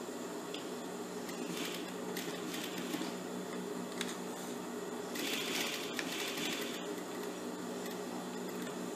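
Industrial straight-stitch sewing machine stitching reinforcing back-tacks into a seam of stretch knit, in two short runs of about a second and a half each, with the machine's motor humming steadily throughout.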